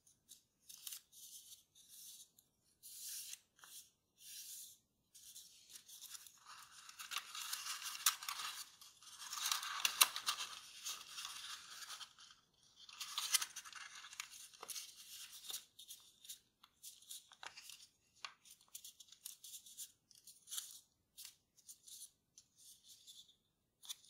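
A 15 cm square of kraft paper being folded by hand: short rustles and crisp crinkles as creases are made and pressed, with a longer, louder stretch of continuous rustling and crinkling in the middle while the paper is reshaped.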